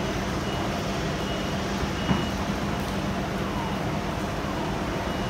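Steady machinery hum under a vehicle's reversing alarm beeping about once a second, with one light metallic knock about two seconds in.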